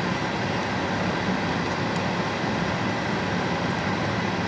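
Steady hum inside a car cabin from the air-conditioning blower running, with no sudden events.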